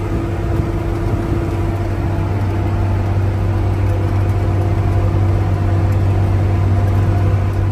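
John Deere 8760 articulated four-wheel-drive tractor's six-cylinder turbo diesel running steadily under load while pulling a field cultivator at about 6 mph, heard from inside the cab as a steady low drone.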